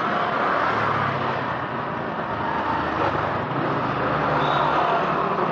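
Steady street traffic noise, with the low engine hum of a passing vehicle.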